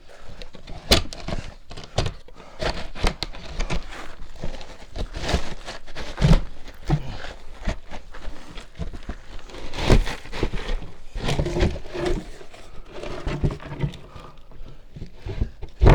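A wooden crawlspace access door being handled and shoved into its opening: irregular scraping, bumping and knocking, with several heavier thuds. The door won't seat fully, which the owner puts down to the wood having swelled from moisture.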